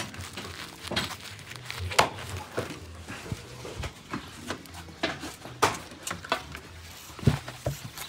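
Irregular knocks and clicks, about one every second or so, from hands working with knives and corn ears on a table.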